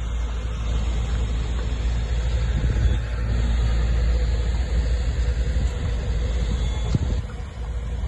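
Heavy construction machinery's engine running steadily with a deep rumble, with a few brief knocks.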